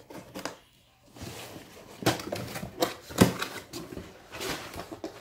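Cardboard shipping box being opened and handled: irregular rustling and scraping, with a few sharp knocks about two and three seconds in.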